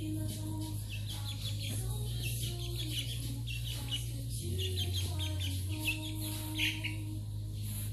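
Young chickens clucking and peeping in frequent short calls, over background music with sustained low notes that shift in pitch a few times.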